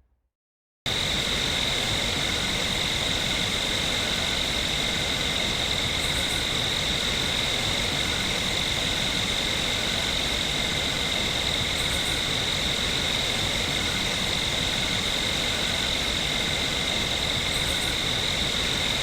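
Steady insect chorus, crickets trilling in a constant high band over an even hiss, starting suddenly about a second in.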